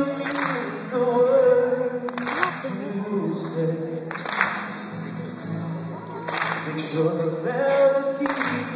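Man singing live to his own strummed acoustic guitar, with long held notes that bend in pitch and a chord strummed every second or two.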